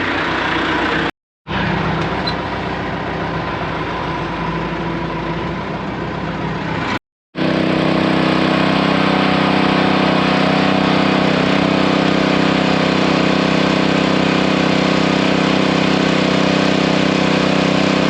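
An engine running steadily, with two brief dropouts in the sound, about a second in and about seven seconds in.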